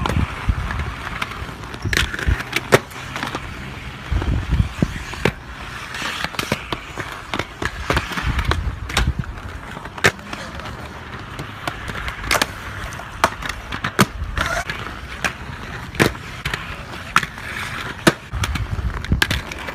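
Skateboard wheels rolling on concrete with a low rumble, broken every second or two by sharp clacks of boards popping and landing.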